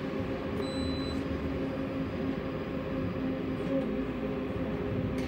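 Tram running with a steady rumble and hum. A short high beep sounds once about half a second in.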